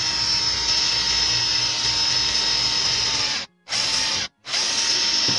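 Cordless drill boring a hole into the end of an MDF block, running steadily with a high whine. The sound cuts out twice for a moment, about three and a half and about four and a half seconds in.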